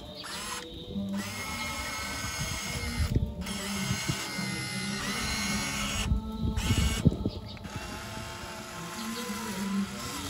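Radio-controlled scale model CAT excavator's electric motors whirring and gears clicking as the boom and bucket move, the whir changing in pitch and level as different functions run, with a few louder knocks partway through.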